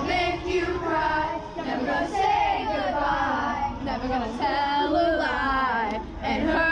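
A group of middle-school children singing together, several voices overlapping and rising and falling in pitch.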